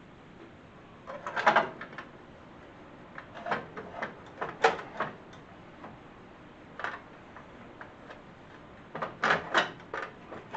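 Scattered clunks and knocks of a sheet-metal dash tower being shifted and worked down over a garden tractor's steering column, in a few short clusters, busiest near the end.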